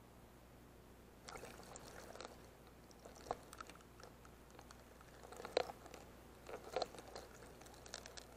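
Underwater crackling and clicking as a wave surge washes through a rocky pool, stirring up bubbles and loose shell gravel. It starts about a second in and comes in irregular clusters, with a few sharper clicks.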